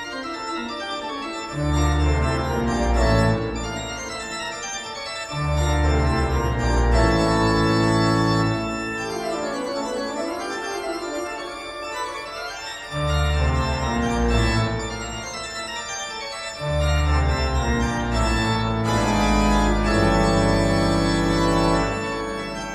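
Background music: sustained organ chords over a deep bass that comes in and drops out in long phrases.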